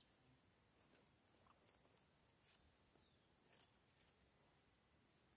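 Near silence, with a faint, steady high-pitched insect trill throughout and a few faint clicks.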